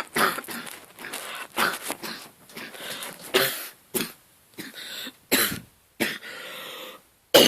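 A man coughing several times in short bursts and clearing his throat: a chesty asthma cough, bringing up mucus loosened by a nebulizer treatment.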